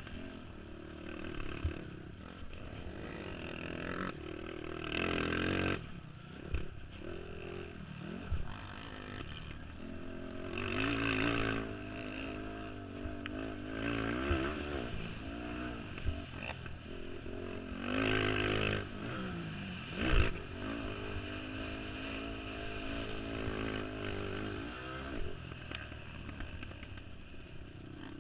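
Racing ATV engines revving hard and passing, several at once, their pitch climbing and dropping as the quads accelerate and shift, with a few louder swells as machines come close. A single sharp knock stands out about two-thirds of the way through.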